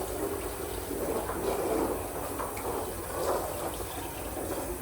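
Water running and splashing in a kitchen sink while dishes are washed by hand.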